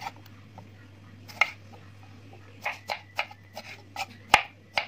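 Kitchen knife slicing tomatoes on a cutting board: irregular knocks of the blade against the board, one near the start of the second second, then a quicker run of taps in the second half, the loudest about four seconds in.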